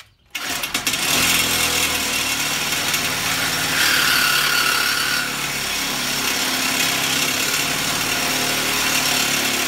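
Reciprocating saw cutting through a galvanized steel square-tube trailer tongue. It starts about a third of a second in and runs steadily, with a brief higher whine about four seconds in.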